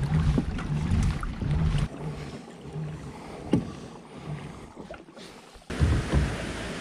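Wind rumbling on the microphone aboard a kayak on open water, with a few small knocks and water slaps against the hull. About a second before the end the sound changes suddenly to a steady hiss.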